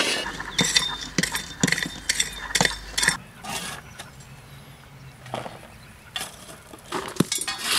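Hand tools scraping and chinking against hard sediment in short, irregular strokes, thick for the first few seconds, then a quieter gap, then more strokes near the end.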